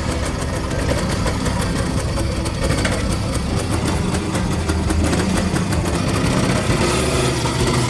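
Small single-cylinder four-stroke engine of a restored Honda 70cc motorcycle idling steadily with rapid, even firing, just after being started.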